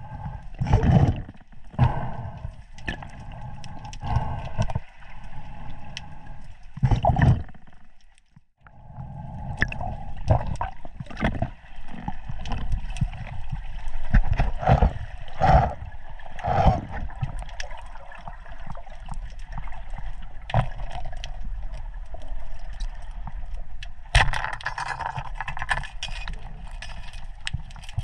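Sea water gurgling and sloshing around the camera in irregular surges, with a brief drop-out about eight seconds in.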